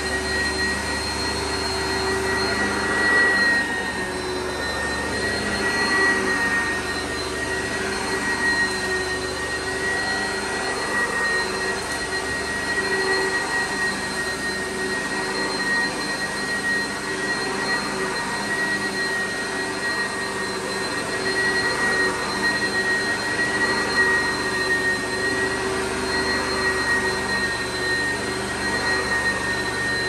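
Oreck XL upright vacuum cleaner running steadily as it is pushed over carpet, with a constant high-pitched whine over the rush of air.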